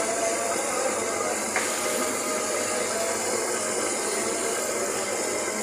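Battered fish deep-frying in a karahi of hot oil: a steady sizzle of bubbling oil, with one brief sharp click about a second and a half in.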